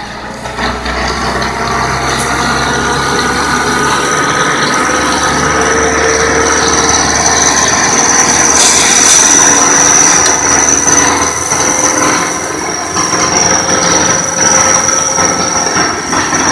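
Ajax Fiori self-loading concrete mixer running under load as its loader arm lifts and swings the bucket, the engine noise topped by a steady high-pitched whine. Loudest about nine to ten seconds in, with the bucket raised.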